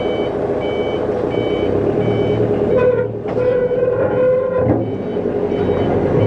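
Heavy vehicle reversing: its back-up alarm beeps steadily at roughly one and a half beeps a second over the running engine.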